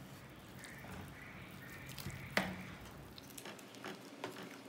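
Wooden spoon stirring beef korma gravy in a nonstick kadhai: faint wet squelching and sloshing, with one sharp tap about two and a half seconds in and a few small clicks near the end.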